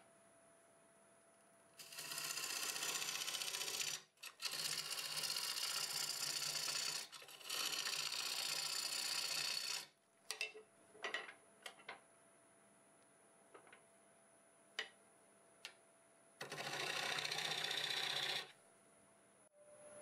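Half-inch bowl gouge cutting into green, wet cherry on a spinning wood lathe while hollowing a bowl: three long, even cutting passes in the first ten seconds, then a few scattered clicks and ticks, and one more cut near the end. A faint steady whine from the running lathe sits underneath throughout.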